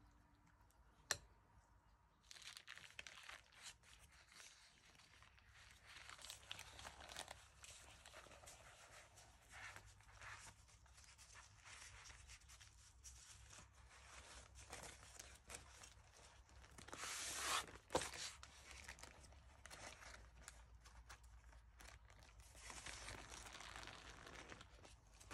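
Quiet rustling and crinkling of baking paper as a sheet of puff pastry is unrolled and the paper peeled away from the dough, with a louder crackle a little past the middle. A single sharp tap about a second in.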